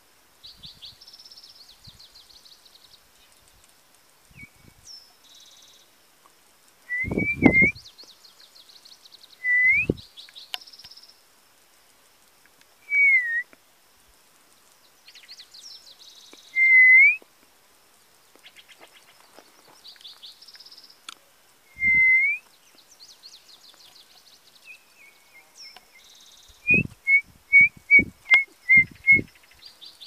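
Songbirds in a pine tree: loud clear whistles, each a single slurred note, come every few seconds, and a quick run of about seven short whistles follows near the end. Fainter high buzzy trills and twitters go on between them.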